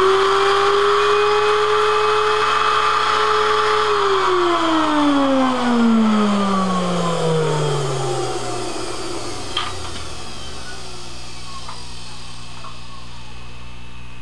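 Suction motor of a homemade vacuum former running with a steady whine while it pulls heated milk-jug HDPE sheet down over a part. It is switched off about four seconds in and winds down, its pitch falling over about five seconds, leaving a low steady hum and a couple of faint clicks.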